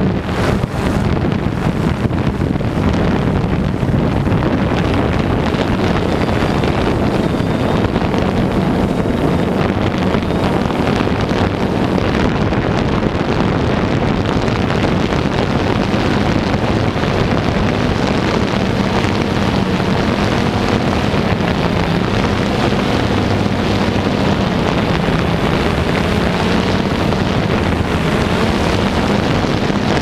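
DJI Phantom 2 quadcopter's motors and propellers humming steadily, heard from the camera mounted on the drone in flight, with wind buffeting the microphone; the hum wavers slightly in pitch as the drone holds against the wind.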